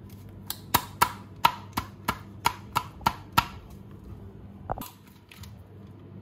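A quick run of about ten sharp knocks, roughly three a second, then two softer knocks about a second later.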